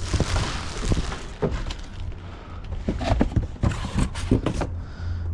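Knocks and clatter of welder parts and packaging being handled, with a rustle near the start, over a steady low hum.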